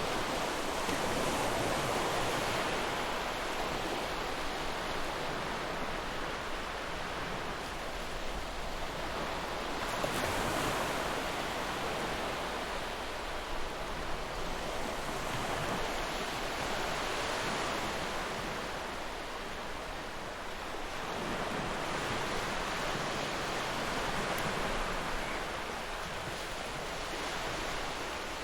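Ocean waves breaking and washing on a shore, a continuous surf noise that swells and recedes every few seconds.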